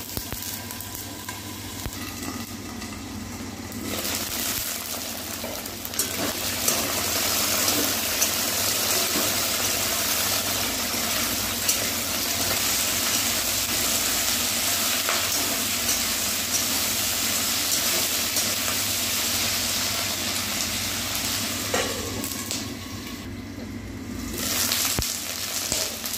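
Drumstick pods and potato pieces sizzling in mustard oil in a kadai, muffled under a glass lid for the first few seconds, then louder once the lid is off. A metal spatula scrapes and clicks against the pan as the vegetables are stirred, and the sizzle dips briefly near the end.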